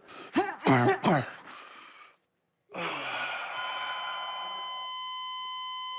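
A dying man's last strained, wordless breaths, then a hospital heart monitor flatlining: one unbroken steady beep that starts about three and a half seconds in and holds, the sign that he has died.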